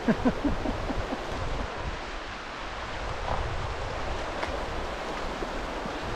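Virgin River water rushing steadily through the canyon, with a low buffeting of wind on the microphone.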